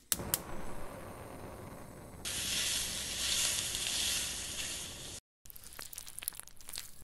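Two sharp clicks of a gas stove's igniter as the burner knob is turned, then a steady hiss. About two seconds in, loud sizzling begins as ground meat fries in a wok and is stirred with chopsticks, stopping suddenly after about three seconds. After a short gap, a metal spoon makes small clicks and scrapes spreading sauce on a tortilla.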